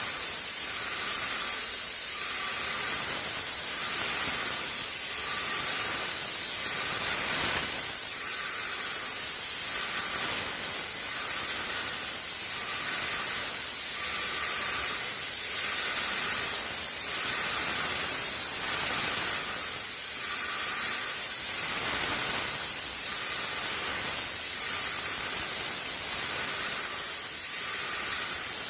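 Airless paint sprayer spraying paint onto a wall: a steady high hiss of the spray, with a faint pulse repeating about every two seconds.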